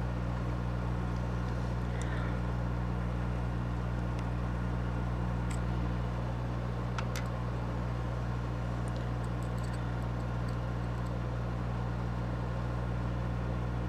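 Steady low hum throughout, with a few faint light clicks of small parts being handled.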